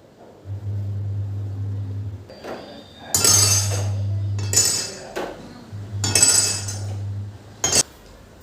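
Dishes and utensils clinking and clattering in a few bursts, with a sharp clink near the end. A low steady hum switches on and off several times underneath.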